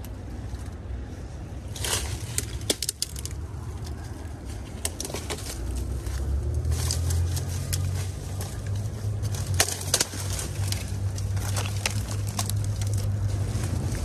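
Someone pushing through dense brush: leaves and branches rustling, with many sharp twig snaps and crunches of dry sticks and dead vegetation. A steady low rumble builds about five seconds in and continues to the end.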